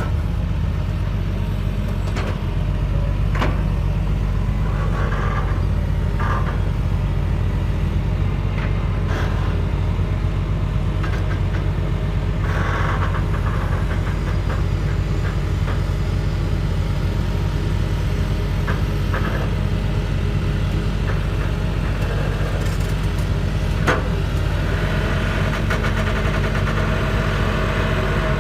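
A large vehicle engine running steadily, with a few short knocks and clanks over it.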